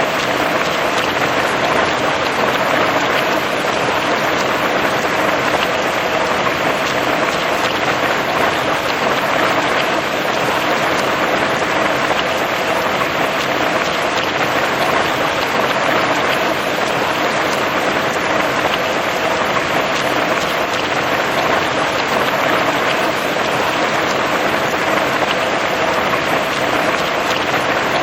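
Steady rain falling: an even, dense hiss with scattered ticks of individual drops, unchanging throughout.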